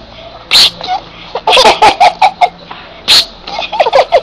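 Baby giggling and laughing in short, choppy bursts, with two sharp breathy bursts between them, about half a second in and again about three seconds in.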